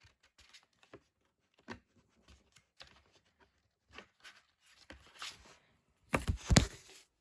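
Handling of a plastic DVD case and its paper pamphlet: scattered light clicks and rustles, then a louder clatter of plastic clicks and paper rustling about six seconds in.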